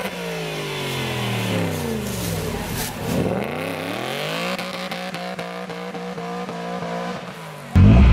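Aston Martin Vantage engine revved a few times at low speed, the revs falling back each time, then settling into a steady burbling idle as it creeps by. Near the end a sudden cut brings in a much louder engine from another sports car.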